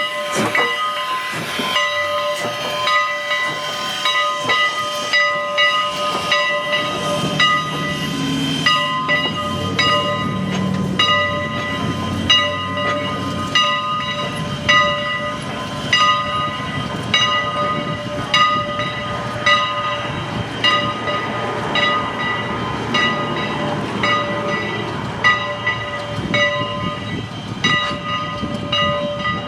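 Steam locomotive working with its train: regular beats a little more than one a second, over steady steam hiss and a few steady high ringing tones.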